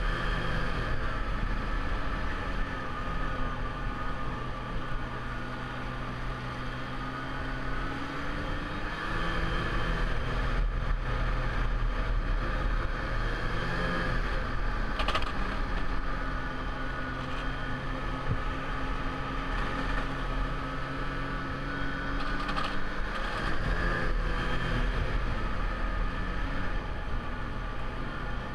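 Snowmobile engine running while the sled is ridden along a trail, its pitch rising and falling as the throttle changes.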